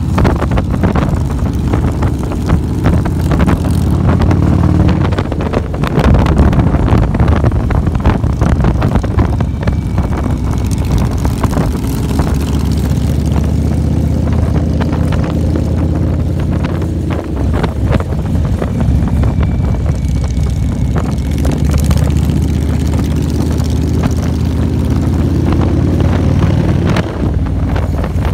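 Motorcycle engine running steadily at road speed, with wind buffeting the microphone.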